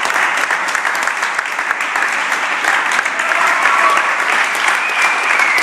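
Steady applause from a small roomful of spectators clapping by hand, with a few faint calls rising over it.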